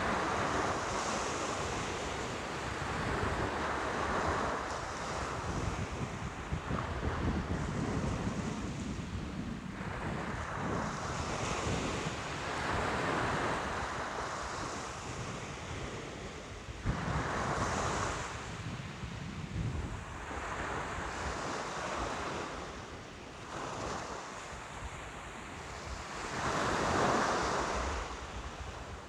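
Ocean waves breaking and washing up the shore over and over, each surge of surf swelling and falling away every few seconds.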